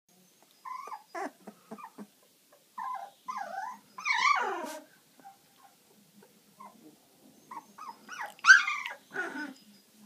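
Young yellow Labrador puppies whining in short, high, bending calls. About four seconds in there is a longer whine that falls in pitch, and the loudest call comes about eight and a half seconds in.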